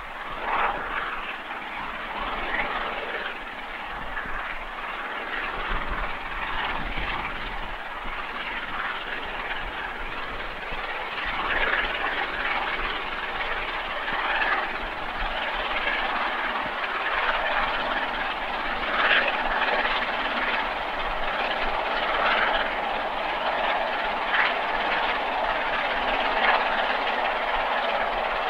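Peppercorn A1 Pacific steam locomotive 60163 Tornado working up a steep climb at speed with a passenger train. Its exhaust and the coaches running on the rails make a steady noise that grows gradually louder as the train draws nearer.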